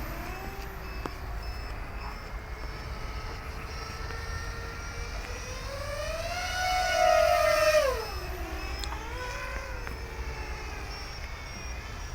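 FPV racing quadcopter's brushless motors whining on a 4S LiPo, the pitch following the throttle. A steady hover tone climbs to a higher pitch about six seconds in, holds there for a second or two, then drops back and wavers.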